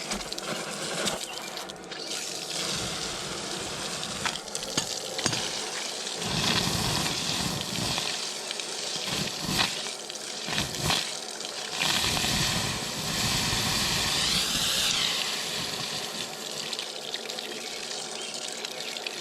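Running water, as from a tap or hose, used to cool freshly forged steel tongs, with a few sharp knocks and clatter over the steady hiss.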